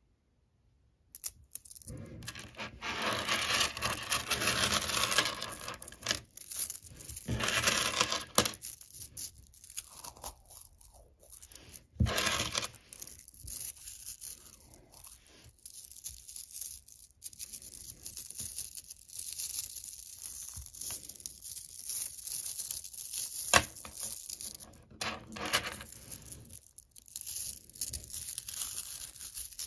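Small smooth magnetic ferrite pebbles clattering and crackling as a clump of them is squeezed and kneaded in the hands. The crackle starts about a second in and comes in spells with short pauses, with a few sharper clicks.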